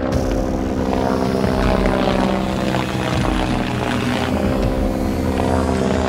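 Steady engine drone that starts suddenly and holds an even pitch throughout.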